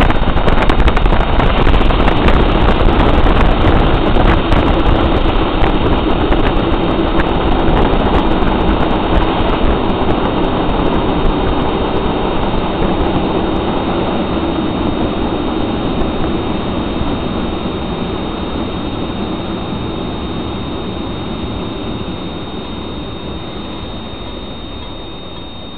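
Running noise of a train heard from on board: a steady rumble and rush that fades evenly as the train slows down.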